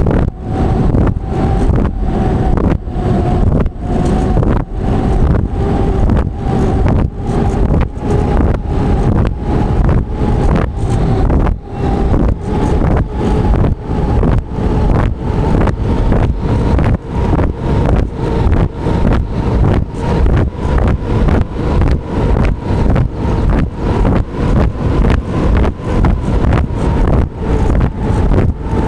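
Engine and propeller of a small aircraft running steadily in flight, with a steady droning pitch under wind noise on the microphone, the level pulsing about twice a second.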